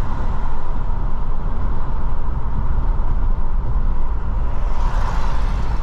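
Steady road noise of a car driving at speed: a low rumble of engine and tyres with a hiss of wind and road above it, growing slightly brighter near the end.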